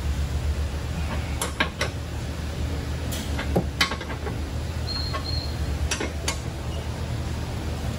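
A handful of light metallic clinks as hand tools meet the rear suspension during an alignment adjustment, over a steady low hum of shop equipment. Two short high beeps come about five seconds in.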